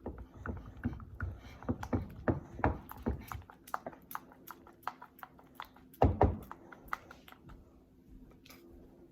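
Glue-and-contact-lens-solution slime being worked as it starts to set: irregular sticky clicks, quick and dense for about three seconds, then sparser, with one louder knock about six seconds in.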